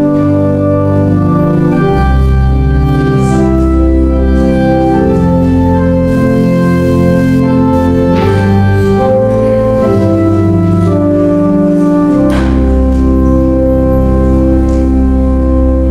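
Church organ playing slow, sustained chords over deep bass notes, the chords changing every second or two.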